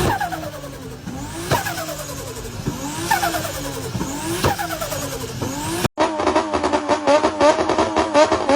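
Turbocharged car engine revved again and again, about every second and a half: a high turbo whistle climbs with each rev, then the pitch falls away with a sharp snap as the throttle closes. After a cut about six seconds in, a steadier pitched sound with fast ticking takes over.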